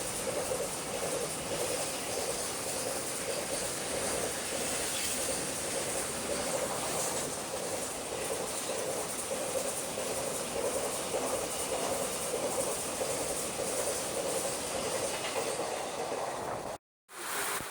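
A train running past, its wheels going steadily over the rails. The sound cuts off abruptly about a second before the end.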